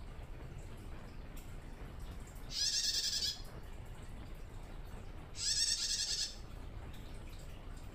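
A female prenjak tamu giving two rapid chattering trills, each about a second long and about three seconds apart: a still-wild hen calling for a male.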